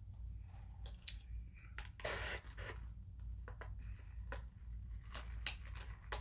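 Brief rustles, scrapes and clicks of a plastic drinking straw being unwrapped and worked into a paper soda cup, over a low steady hum.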